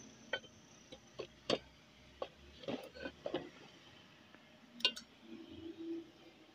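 Light, scattered clicks and taps, about ten of them, from a Honda 125 motorcycle carburettor being handled and turned over in the hand. The loudest is a quick double click about five seconds in.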